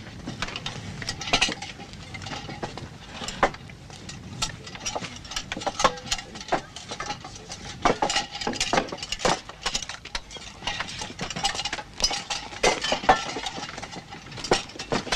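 Irregular clatter of metal dishes and utensils: many sharp knocks and clinks in uneven succession, some with a short ringing tone.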